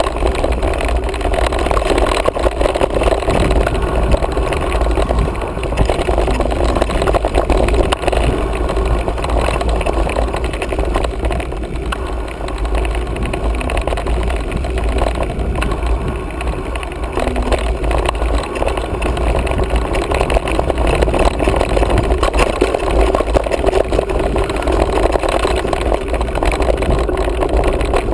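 Wind buffeting the microphone of a mountain bike's action camera, a steady loud rumble, mixed with the tyres running over a dry dirt singletrack and the bike rattling over the bumps.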